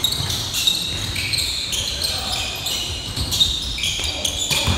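Basketball game in play: many short, high sneaker squeaks on the court floor, overlapping one another, with a basketball bouncing and thudding underneath.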